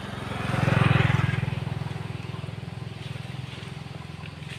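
A motor vehicle's engine passing by, loudest about a second in and then fading away.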